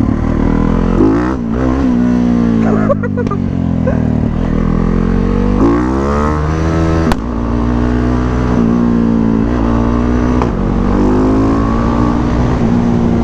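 Motorcycle engine running under way, its pitch climbing and dropping several times as the throttle is opened and eased off, with a sharp click about seven seconds in.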